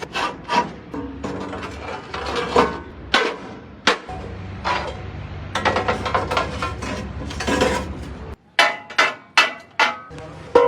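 Irregular hammer blows on metal, a dozen or so sharp strikes, some ringing briefly, over a low steady hum through the middle stretch.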